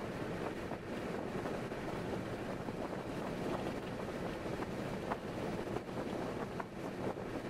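Steady road and wind noise of a car cruising on a highway, with a few faint ticks.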